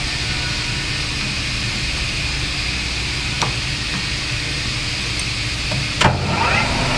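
Metal lathe running steadily while a twist drill in the tailstock drill chuck bores into a spinning brass workpiece. A sharp clunk sounds about six seconds in.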